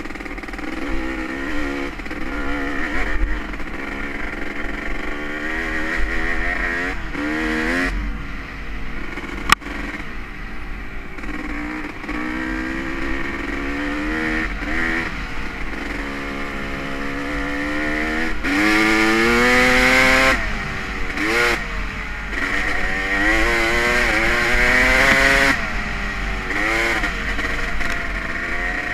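Honda CR250R two-stroke engine revving up and down over and over as the bike is ridden, climbing to a long high rev about two-thirds of the way through before dropping off. A single sharp click about ten seconds in.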